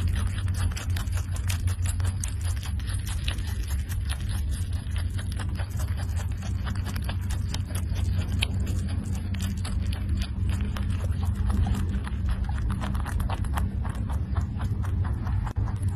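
A rabbit chewing a sprig of leafy greens, a rapid run of small crunching clicks from its teeth, over a steady low hum.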